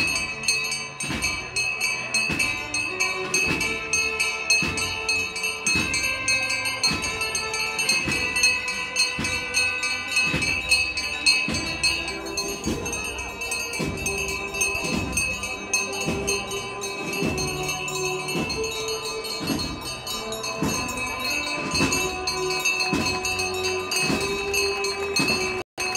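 Procession band playing a slow march, with held brass-like notes over a steady drumbeat.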